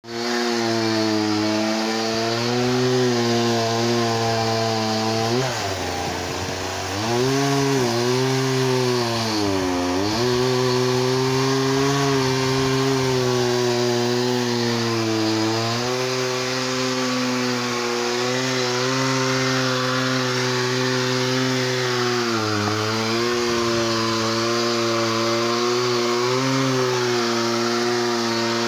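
Two-stroke chainsaw engine running steadily at part throttle, its pitch sagging twice, around six and nine to ten seconds in, before climbing back.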